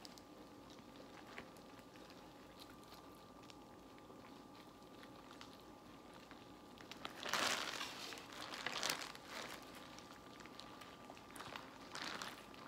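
Crab shells being cracked and picked apart while eating a seafood boil: bursts of crunching and crinkling about seven seconds in and again near the end, over a faint steady hum.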